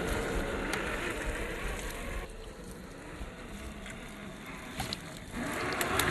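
Traxxas TRX-4 G500 RC crawler driving over forest ground: motor and drivetrain running, with scattered clicks of the tyres on debris. The noise drops off a couple of seconds in as the truck eases off, then picks up again about five seconds in.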